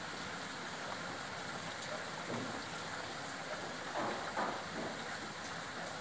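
Steady rain falling on trees and leafy vegetation, an even hiss, with a couple of brief louder sounds about four seconds in.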